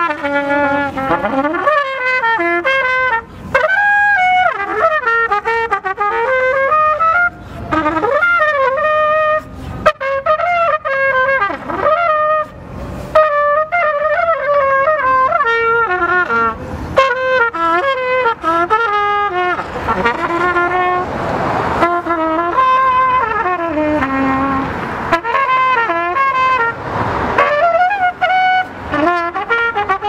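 A trumpet playing a melody on its own, in phrases with short breaks between them, some notes bending in pitch.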